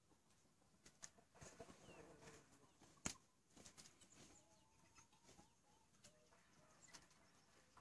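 Near silence, with faint, short clucks from Australorp chickens around the middle and a few light clicks, the sharpest about three seconds in.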